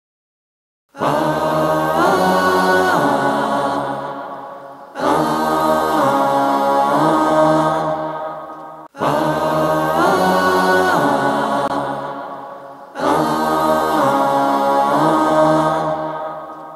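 Chanted choral vocal music: the same sustained, chord-like phrase sung four times, each about four seconds long, starting loud and dying away, after about a second of silence.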